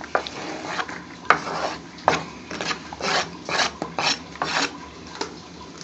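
Knife blade scraping across a plastic cutting board in a series of short, irregular strokes, sweeping chopped onion into a bowl.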